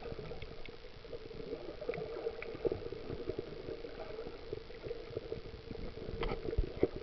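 Underwater noise picked up by a snorkeler's camera: a muffled rumble with a steady low hum and many irregular soft clicks and knocks.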